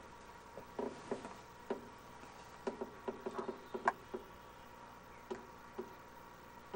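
Scattered light clicks and taps at irregular spacing, a little busier around the middle, over a faint hiss and a thin steady hum.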